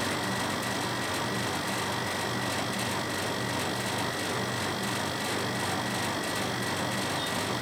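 Steady mechanical hum and hiss, with a thin high tone held throughout and no distinct knocks or clicks.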